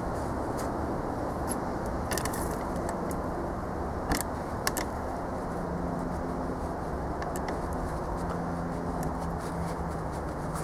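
Steady low background hum with a few light, sharp clicks and clinks, about two seconds in and twice more around four to five seconds in: hand tools and parts being handled on the engine block.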